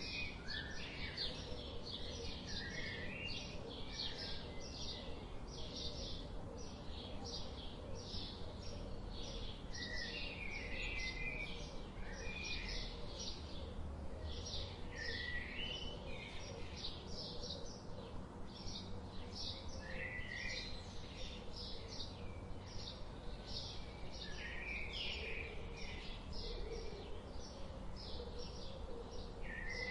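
Goslings peeping continually, short high calls about three a second with occasional lower chirps, over a steady low background rumble.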